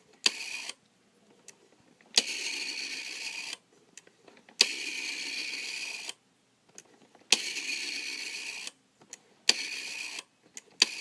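Rotary telephone dial being dialed: each digit starts with a sharp click, then the dial whirs steadily back to rest. About five digits are dialed, one short and three long returns of about a second and a half, the long ones being nines and zeros.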